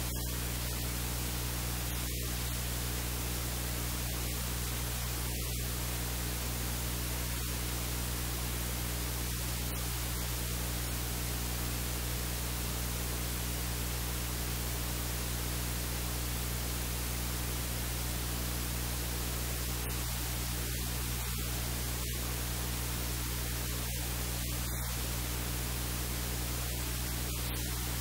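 Steady static hiss with a low electrical hum underneath, unchanging throughout; no kitchen sounds stand out.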